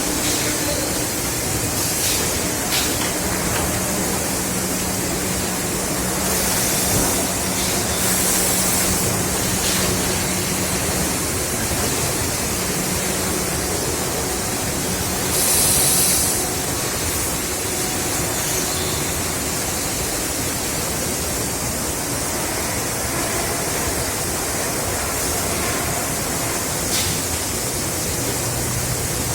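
Steady, loud machinery noise on a factory production line for chest freezers, with a faint hum for several seconds and a few short bursts of high hiss, the loudest about halfway through.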